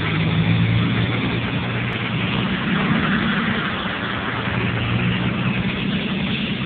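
Toyota Tacoma pickup driving along wet beach sand: the engine runs at a steady cruising hum under a constant rushing noise of tyres through shallow water and wind on the microphone.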